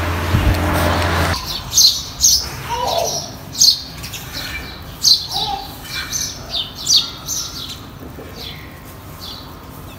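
Birds chirping: many short, high, falling calls at an uneven pace, with a couple of lower notes among them. It opens with a steady rushing noise and low hum that cuts off suddenly after about a second and a half.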